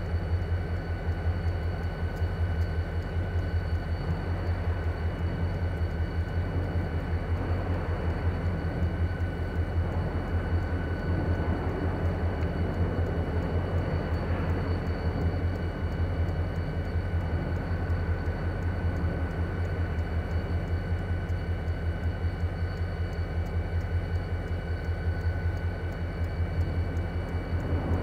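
A pair of NYSW diesel locomotives idling: a steady low drone with a fine, rapid throb and a faint steady high whine.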